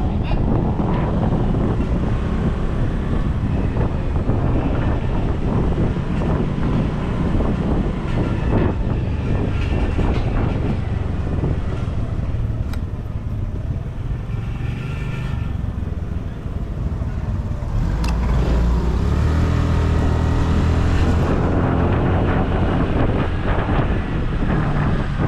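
Motorcycle running on the move, with steady loud road and wind noise; its engine note comes up more strongly a little before the end.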